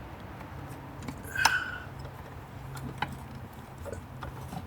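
Small metallic clicks and taps from the oil drain plug being fumbled into the sump's hole by hand, with one sharper ringing clink about a second and a half in. A steady low hum runs underneath.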